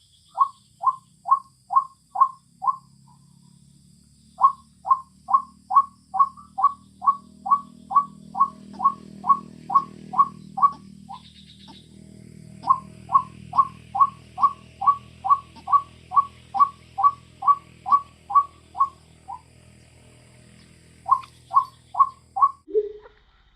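White-breasted waterhen (ruak-ruak) calling: a monotonous string of short, identical notes, about two to three a second, in long runs with brief breaks.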